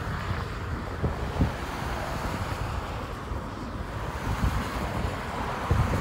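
Wind buffeting the microphone in uneven gusts, a low rumble over a steady hiss of wind.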